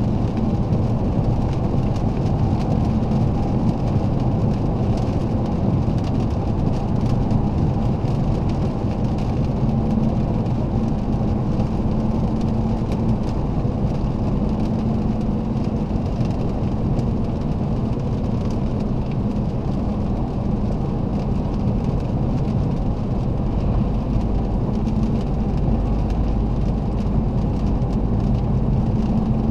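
Alfa Romeo 159 2.4's five-cylinder diesel engine running steadily while driving, with an even rush of tyre and road noise, heard from inside the cabin.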